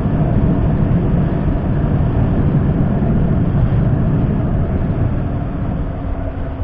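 Wind rushing over the camera microphone on a motorcycle cruising at about 50 km/h, with the engine running underneath. Near the end the rush eases a little and a steady engine tone shows through.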